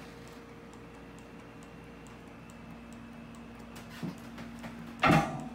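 Small alcohol-fired Stirling engine driving a brass desk fan, running with a steady hum and light, regular ticking from its mechanism. A loud thump near the end.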